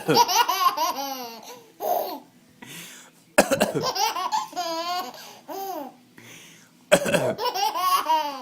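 A baby giving pretend coughs three times, at the start, about three and a half seconds in and about seven seconds in, each cough followed by a run of laughter.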